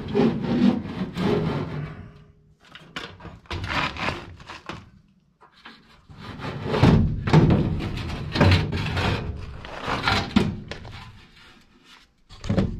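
HVAC blower motor and its sheet-metal housing being worked loose and pulled out of the air-handler cabinet: an irregular run of thunks, knocks and metal scraping, busiest in the second half.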